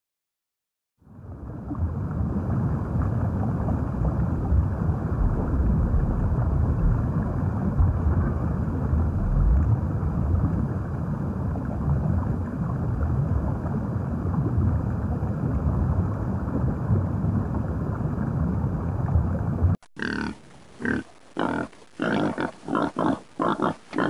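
Steady underwater rumble and hiss, dull with no high end, starting about a second in. Near the end it cuts off suddenly and domestic pigs grunt in a quick series of short grunts, two or three a second.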